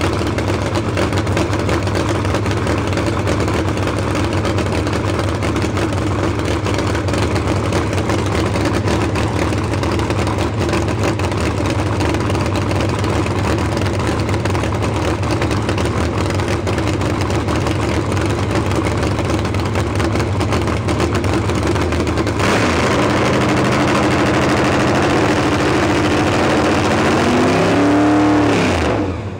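Supercharged V8 of an Austin gasser, running on open headers at its first fire-up: a loud, steady idle that runs a little higher for the last several seconds. Just before the end the revs rise briefly, then sink as the engine is shut off.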